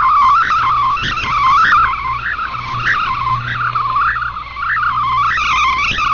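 Shortwave radio receiving a digital data-mode transmission: continuous warbling, stepping tones over band noise, with a low steady hum underneath.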